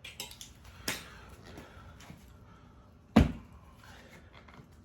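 Handling noises from a motorcycle tire on its rim: light knocks and clicks, a sharper knock about a second in, and a loud single thump about three seconds in.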